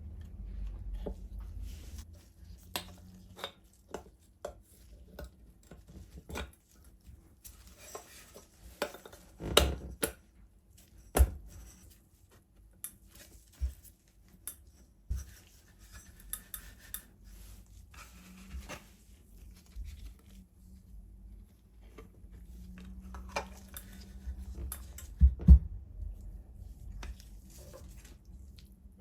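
Irregular clinks, taps and knocks of small metal parts being handled and set down, with a few sharper knocks about a third of the way in and a close pair near the end.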